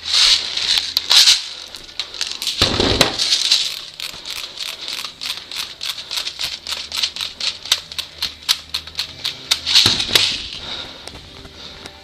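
Airsoft rifles firing in rapid, repeated shots, about three to four a second. Denser bursts come near the start, about three seconds in and again near ten seconds. A low thud sounds about three seconds in.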